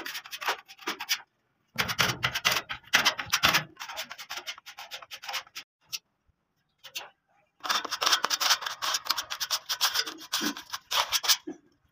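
Sandpaper rubbed by hand over body filler on a steel truck body panel, in runs of quick scratchy back-and-forth strokes. The strokes stop briefly a little after a second in and again around the middle.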